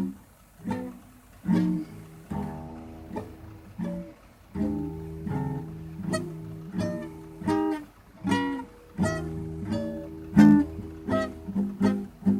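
Solo acoustic guitar improvising a blues: plucked notes and strummed chords, each sharply attacked and ringing, in an uneven, free rhythm.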